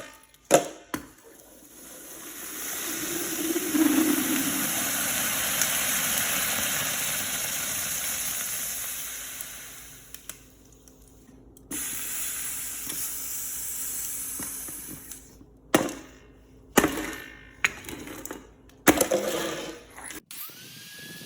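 A loud rushing hiss that swells over a few seconds and then fades away, followed by a second, shorter hiss and then several sharp knocks.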